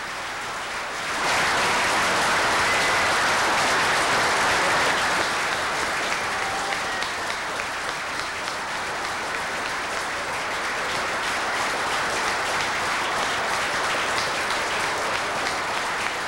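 Audience applauding, swelling sharply about a second in and then running on steadily.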